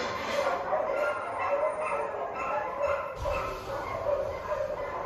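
Animal cries: a run of short, pitched whining and yipping calls, one after another.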